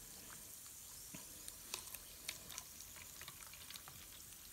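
Faint fizzing of a baking soda and vinegar reaction: small bubbles popping in the model volcano's crater as a soft hiss with scattered tiny crackles.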